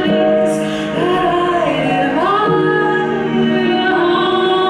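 Live symphonic metal band in a slow passage: a female singer holds long notes and slides between them over sustained backing chords, with no drums.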